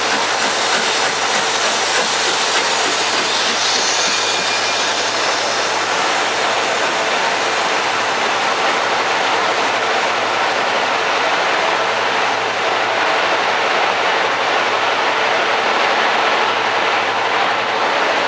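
A steam-hauled train of coaches running past close by along the platform, behind British Railways Standard Class 7 'Britannia' locomotive 70013: a steady loud rumble and rattle of wheels on the rails.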